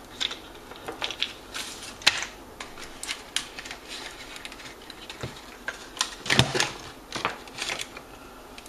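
Irregular clicks and taps of hand tools and small metal parts being handled on a workbench, with a louder clatter about six seconds in.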